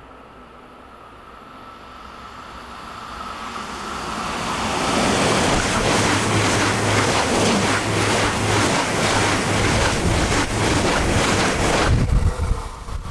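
ICE high-speed train passing through the station at speed without stopping. A rising rush builds as it approaches and becomes loud for several seconds, with rapid clicking of the wheels over the rails and a low steady hum. About twelve seconds in it cuts off as the train's end passes, leaving a gusty rumble of wind in its wake.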